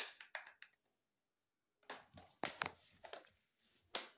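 Plastic end cap being pushed and worked onto the end of a window blind's headrail: a few sharp clicks at the start, a quiet second, then a run of clicks and rattles and one last sharp click near the end, as the cap resists seating.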